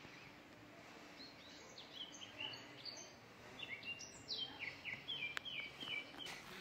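Faint birdsong over quiet outdoor background noise: from about two seconds in, a bird sings a run of short, high chirps that step up and down in pitch.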